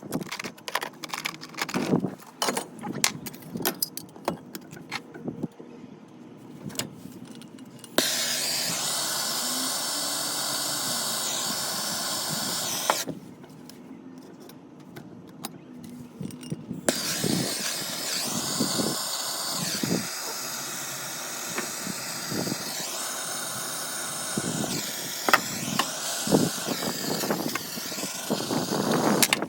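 Clicks and knocks of parts being handled, then a power tool's motor running in two long stretches, about five seconds and then about twelve. The high whine shifts in pitch as the tool bears on the work, which here is the cutting and shaping of a shortened dishwasher tailpiece.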